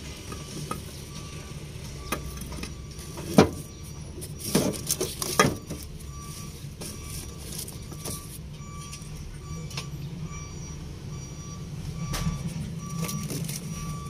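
A few sharp knocks and clinks from handling the battery cables and compartment, the loudest about three and a half and five seconds in. Behind them a low engine hum and a vehicle's reversing beeper beeping at a steady rate.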